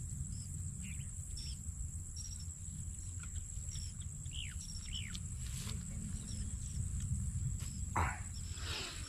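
Riverside outdoor ambience: a steady high drone of insects and a low wind rumble on the microphone, with scattered short bird chirps and downward-gliding calls. A louder falling sweep comes near the end.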